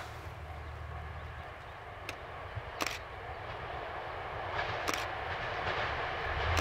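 Kyoto Tango Railway 'Tango no Umi' diesel railcar approaching in the distance, its running sound growing louder over the last couple of seconds. A few short sharp clicks come about two, three and five seconds in.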